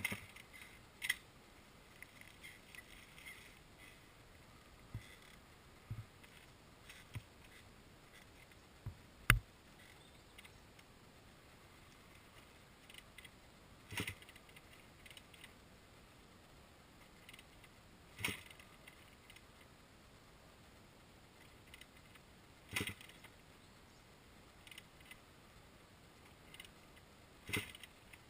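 Scattered small clicks and light rattles, with one sharp loud click about nine seconds in and a few louder knocks spaced roughly four to five seconds apart later on; no engine is heard running.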